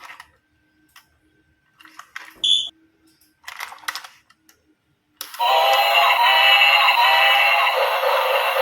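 Plastic toy parts clicking and rattling, then a short electronic beep. About five seconds in, a battery toy's sound chip starts a loud warbling electronic tune.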